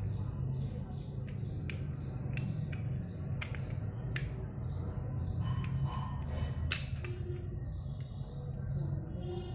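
Irregular metallic clicks and clinks as the brake shoes and their return springs are worked off a motorcycle's drum-brake plate, over a steady low hum.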